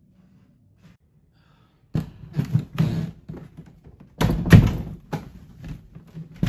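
A run of thumps and knocks starting about two seconds in, the loudest a little past halfway, after a near-quiet start.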